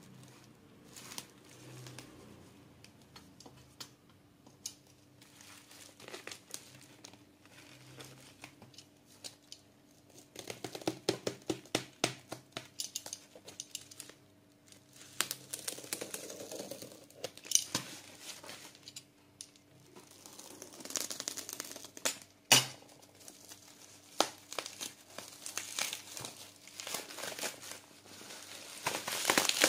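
Plastic bubble wrap crinkling and tearing as it is cut with a utility knife and pulled off a keyboard box, with many small irregular clicks and crackles. One sharp snap about three-quarters of the way through is the loudest sound.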